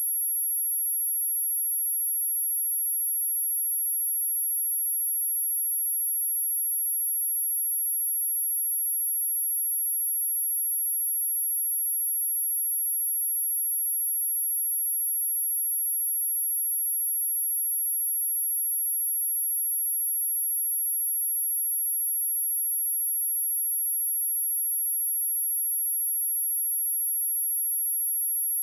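A single steady 11257 Hz sine-wave test tone, a constant high-pitched whistle that holds at one pitch and level without a break.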